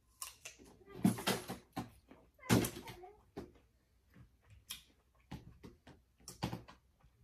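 A crisp apple slice being bitten and chewed: an irregular string of sharp crunches, loudest about a second in and again a second and a half later, with smaller crunches after.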